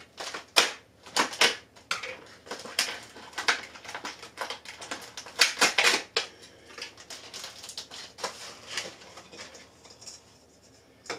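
Clear plastic ornament tube package being cut and pried open with scissors: a run of irregular sharp plastic clicks and crackles that thins out near the end.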